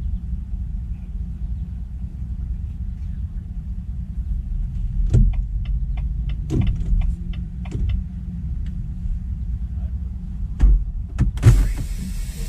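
Semi truck's diesel engine idling, heard from inside the cab as a steady low rumble. Midway comes a run of about eight quick clicks, and near the end two thumps followed by a hiss that keeps going.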